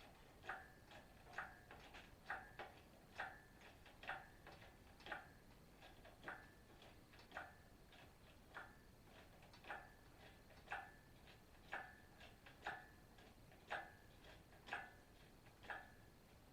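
Engine hoist ratcheting while lifting an engine out: sharp metallic clicks with a short ring, about one a second at a slightly uneven pace, with fainter clicks in between.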